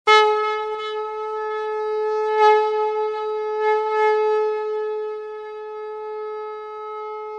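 Conch shell (shankh) blown in one long, steady note that starts sharply.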